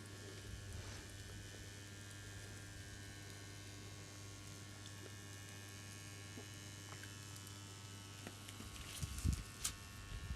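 Spot-welder transformer humming steadily at mains frequency while its secondary is shorted through heavy copper cables, a low, even hum. A few sharp clicks come near the end.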